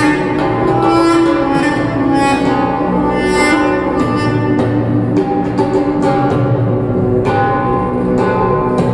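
Duduk playing a slow melody of long held notes, some sliding in pitch, with lower notes sounding underneath as accompaniment.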